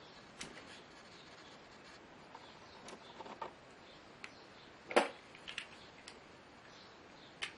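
Scattered light clicks and taps from small parts and tools being handled during a repair, with one sharper knock about five seconds in.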